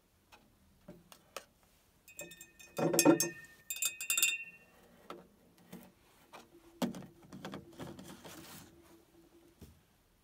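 A stirring rod clinking and ringing against a tall glass graduated cylinder in a quick run of strikes as citric acid is stirred into the water, followed a few seconds later by a softer scraping.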